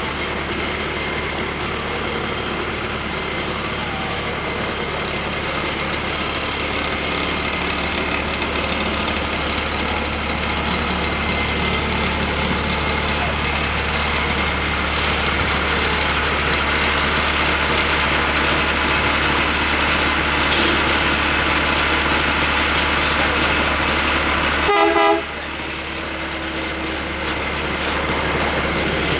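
Small-scale ride-on switcher locomotive's engine idling steadily while it is turned on a hand-pushed turntable. Near the end a short horn-like tone sounds once.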